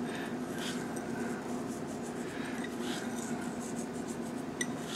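Quiet kitchen with a steady low hum and faint handling noises as a small glass bowl of salt is picked up and held, with a couple of light ticks near the end.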